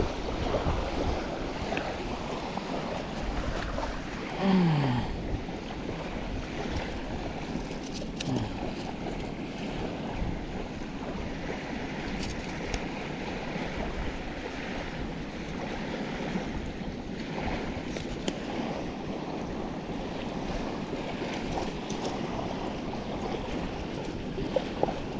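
Wind buffeting the microphone over small waves washing on a beach, with a short falling tone about four and a half seconds in.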